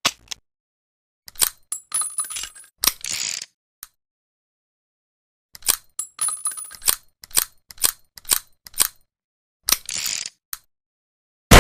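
Metallic clicking and clinking of a small, cheap 'Saturday night special' revolver being handled between shots, in two spells of quick clicks and rattles. A shot goes off right at the end.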